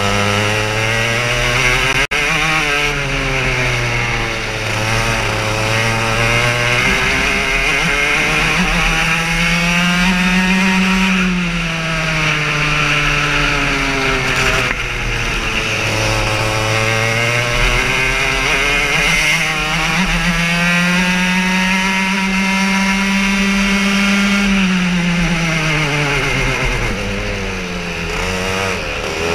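Go-kart engine heard from onboard at racing speed, its revs climbing along the straights and dropping back for the corners several times over. A sharp knock about two seconds in.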